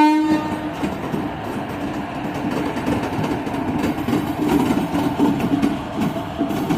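WDP-4D diesel-electric locomotive idling with a steady low hum. A train horn blast cuts off within the first second.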